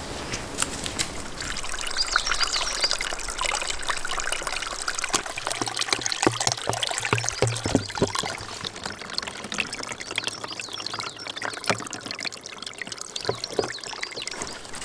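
Water trickling and splashing, with many small crackling drips.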